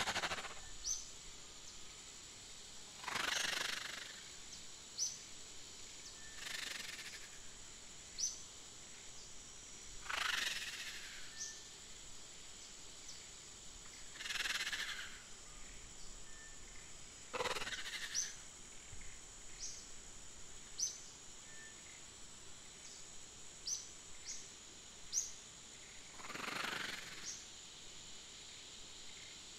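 Outdoor nature ambience: short, high, upward-flicking bird chirps every second or two over a steady high insect drone, with a louder soft swish swelling up every few seconds.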